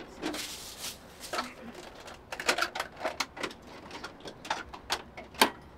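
Hard plastic parts of a G.I. Joe Defiant shuttle playset clicking and knocking as the toy shuttle is handled and set onto its booster: a run of irregular sharp clicks, thickest in the second half.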